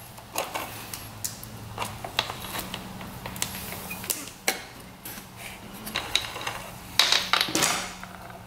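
A 520 O-ring motorcycle drive chain being handled around a rear sprocket, its metal links clinking in irregular clicks, with a busier run of clinks about seven seconds in. A steady low hum sits underneath.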